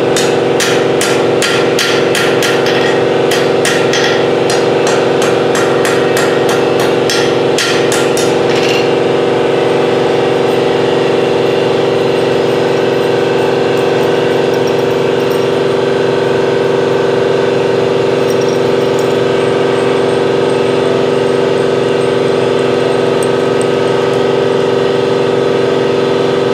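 Hand hammer striking hot steel on an anvil, a run of sharp blows about two to three a second that stops about eight seconds in. Under it throughout, the steady drone of the shop's running air compressor.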